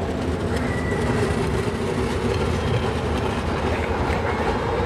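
Tram running past at close range, its wheels rumbling on the rails with a light clickety-clack.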